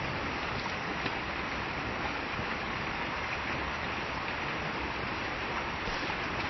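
Steady rushing water of a waterfall, an even hiss with no change.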